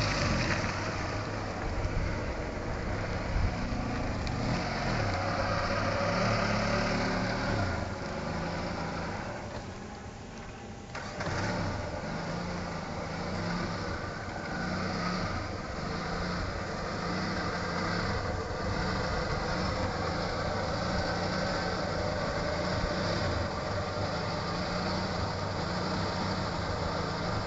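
Suzuki SJ413's 1.3-litre four-cylinder engine running and revving, its revs rising and falling, dropping away briefly about ten seconds in before picking up again.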